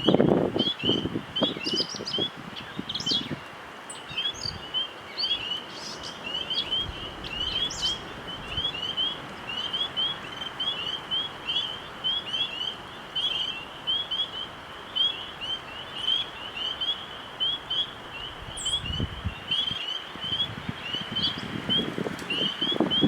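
Birds chirping: a steady run of short, high, repeated chirps, with a few other higher calls over it in the first seconds. Wind gusts at the start and again near the end.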